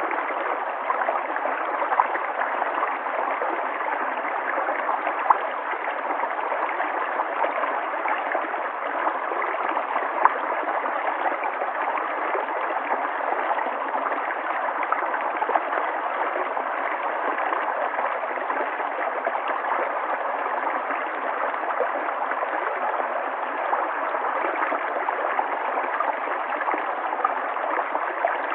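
River water flowing steadily, a continuous rushing and gurgling with small splashes now and then.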